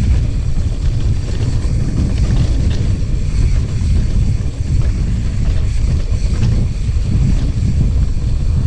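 Strong wind buffeting the microphone during a mountain bike ride, a loud steady rumble.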